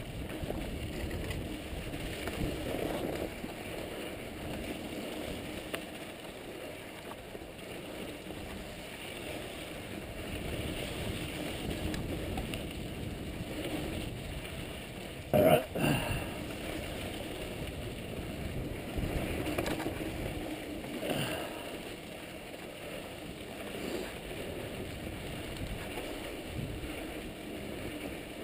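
Mountain bike descending a rocky dirt trail: a steady rumble of tyres over dirt and rock and wind on the microphone, with the bike rattling. A sharp loud knock comes about halfway through, and smaller ones follow later.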